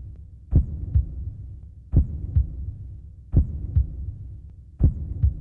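Heartbeat sound effect: four slow double thumps, lub-dub, each pair about a second and a half apart, over a low hum.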